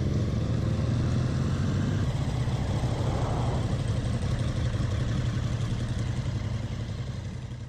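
Motorcycle engine running at low, steady speed under wind noise on the microphone, easing off and fading out near the end as the bike slows.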